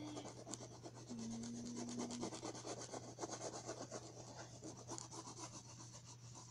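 A black crayon scratching on paper over a hard backing in many quick, short back-and-forth strokes, shading in fur.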